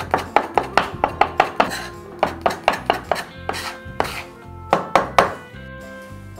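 A metal blade chopping fresh fior di latte mozzarella on a wooden cutting board. The strokes come quickly at about five a second, then slow and thin out, and stop a little over five seconds in.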